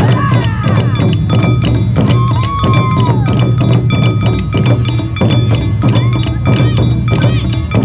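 Live Awa Odori festival music: taiko drums beating a fast, driving rhythm with the bright, ringing clang of a small hand-held kane gong, and a melody line that slides down in pitch about two seconds in.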